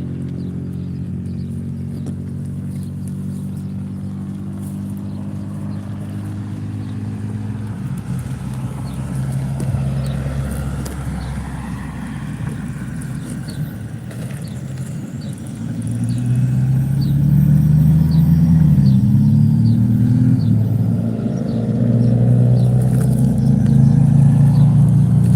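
A motor vehicle's engine running steadily. Past the middle it grows louder and its pitch rises and falls, as with a change of speed or gear.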